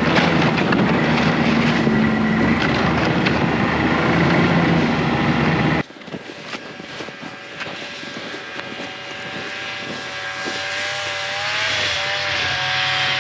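Snowmobile engine running, heard close up from the sled itself; it cuts off suddenly about six seconds in. A quieter snowmobile engine follows, growing steadily louder as the sled approaches.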